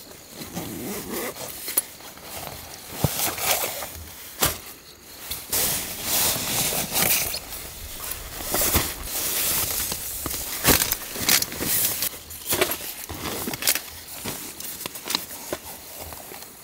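Mystery Ranch Coulee 40-litre backpack being handled and unpacked: nylon fabric rustling, a zipper, and several sharp clicks and knocks.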